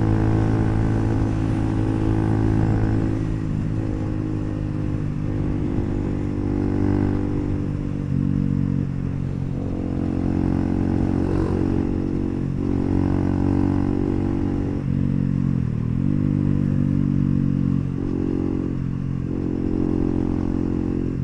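Bajaj Pulsar NS400Z's single-cylinder engine running through an aftermarket HP Corse exhaust while riding, its note shifting up and down with throttle several times and briefly dipping and picking back up about three-quarters through.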